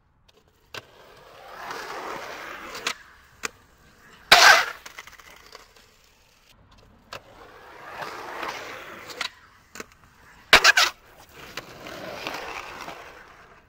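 Three passes of a rolling rumble that swells and fades, with sharp clacks and knocks between them and two loud cracks, one about four seconds in and a double one near eleven seconds.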